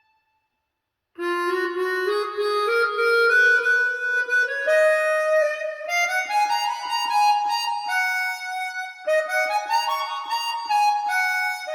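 Music played back over Wharfedale Diamond 9.0 speakers driven by a NobSound NS-15G amplifier. After about a second of silence, a new piece starts: a reedy instrumental melody that climbs in steps.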